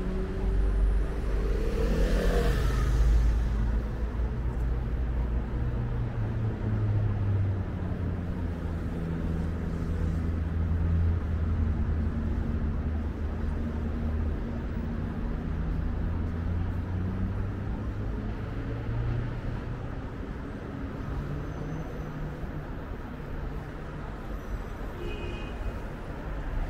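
City road traffic: cars and buses running past close by with a steady low engine hum, one vehicle passing loudly about two seconds in. The traffic noise eases off somewhat near the end.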